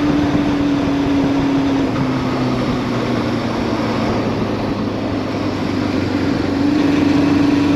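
Honda CB550K's air-cooled inline four, on Mikuni VM34 carbs and a 4-into-1 exhaust, running while the bike is ridden. The engine note drops about two seconds in and eases lower for a few seconds, then rises and gets louder near the end.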